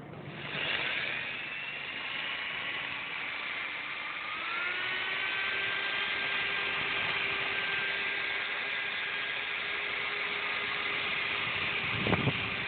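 Electric drill spinning a flexible cable inside a motorcycle breather pipe to scour out the deposits clogging it. The steady whine starts about half a second in and steps up a little in pitch about four seconds in, with a short knock near the end.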